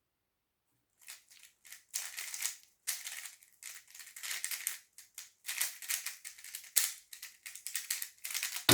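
A 3x3 speedcube being turned very fast in a timed solve, its layers clicking and clattering in quick runs. It ends with a sharp knock near the end as the timer is stopped.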